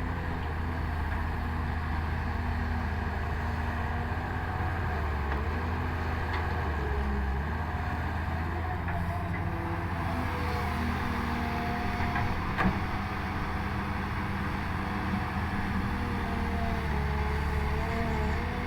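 Excavator diesel engine running steadily under working load, with a higher whine that shifts up and down in pitch. A single sharp knock about two-thirds of the way through.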